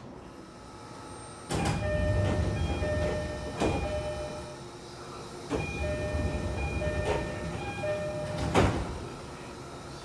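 The old-type door chime of an early-production E531 series train sounding as the sliding doors work: two runs of short repeated chime tones, each ending in a sharp knock, the second knock near the end the loudest. The chime sounds dissonant, a sign that its sound unit has deteriorated with age.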